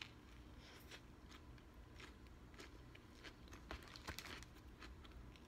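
A bite taken from a sandwich, then faint close-up chewing with scattered soft crunches and small mouth clicks, a few bunched together near the end.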